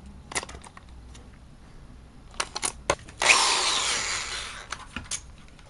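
Clicks from a four-position rotary switch being turned on a modified NES joystick. A loud burst of harsh noise with a falling tone follows just past the middle, lasts about a second and a half and fades, and a few more clicks come near the end.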